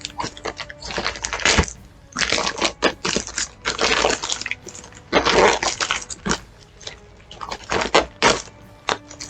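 Packaging handled by hand, crinkling, rustling and tearing in irregular bursts as a package is opened.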